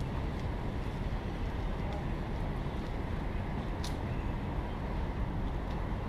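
Outdoor city street ambience: a steady low rumble of traffic noise, with a brief sharp click about four seconds in.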